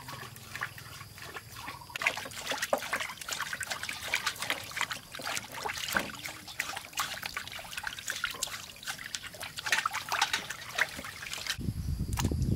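Water splashing and sloshing in a stainless steel basin as a slab of raw pork is rubbed and rinsed by hand, in quick, irregular splashes. Near the end the splashing stops and a louder low rumble comes in.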